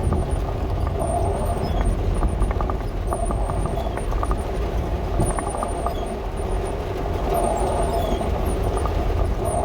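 Dodge A108 van driving through deep mud: a steady engine and road rumble from inside the cab, with a run of clicks and rattles about two to five seconds in. A faint high squeak recurs every second or two.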